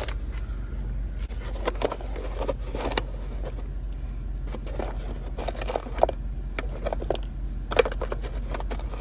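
Small metal hardware (nuts, screws and washers for the paddle shifters) clinking and rattling as it is handled, in scattered sharp clinks, the loudest about two seconds in and again near the end, over a steady low hum.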